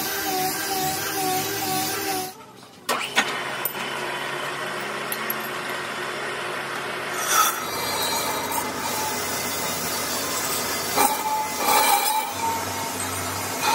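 Lathe turning a cast iron truck brake drum, the cutting tool scraping steadily along the drum's rim. For the first two seconds a wavering tone rides over the cut; after a brief dip and a click, the steady gritty cutting noise runs on with a few short louder scrapes.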